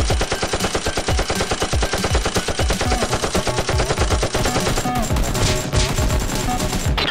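Rapid automatic gunfire sound effect laid over toy blasters firing: a fast, unbroken stream of shots that thins out after about four and a half seconds.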